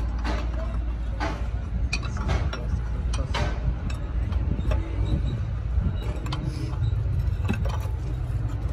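Steady low mechanical rumble with scattered metallic clicks and clinks.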